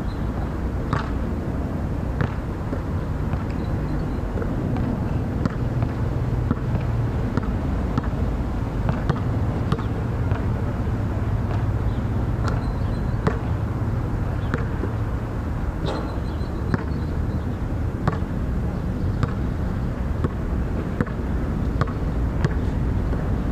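A basketball thuds on the court, rim and backboard in irregular knocks about once a second, over a steady low rumble.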